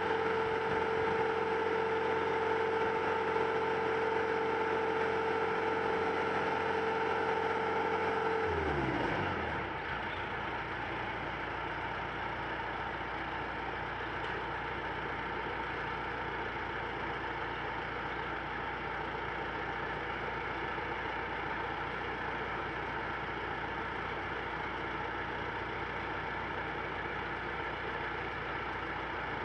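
A motor cruiser's inboard engine running with a steady whine that winds down in pitch about nine seconds in as the throttle comes back, leaving a steady low idle; right at the end it starts to wind up again.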